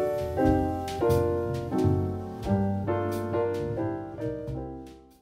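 Outro background music: piano-led chords changing about every half second over light percussion, fading out near the end.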